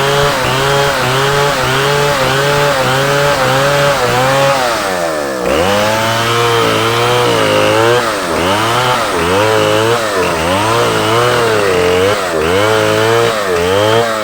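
Two-stroke chainsaw running hard while cutting wood, its engine pitch wavering rhythmically about twice a second as it takes load. About five seconds in the revs drop sharply, then climb back and keep rising and falling, more slowly.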